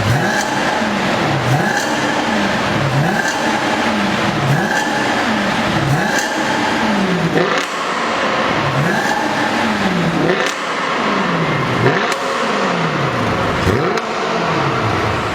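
Audi RS5 engine through an Armytrix cat-back valved exhaust, revved over and over in quick throttle blips, the note climbing and dropping back roughly every second and a quarter.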